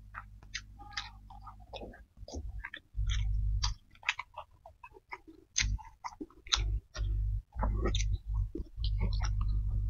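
Close-miked chewing and mouth sounds from someone eating rice and fried salted fish by hand, with many short crisp clicks and wet smacks. A low hum cuts in and out several times.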